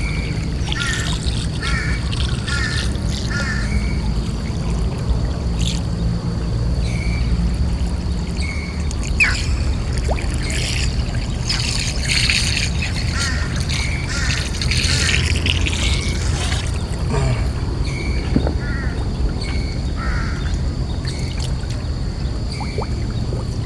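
A small boat engine running low and steady, with short bird calls repeating every second or so and bouts of splashing and dripping water in the middle.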